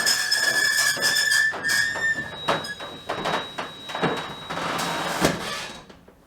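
Old roller garage door squealing loudly as it runs on its track, a high-pitched squeak that holds steady and then breaks off about two seconds in. Several sharp knocks and rattles follow as the door finishes its travel, and the sound fades out near the end.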